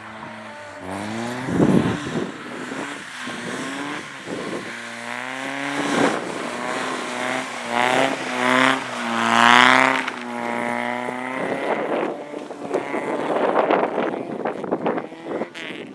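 Car engine revving hard and dropping again through gear changes as a car is driven fast around a track, with the pitch climbing highest about two thirds of the way through. Several louder rushes of noise come in between.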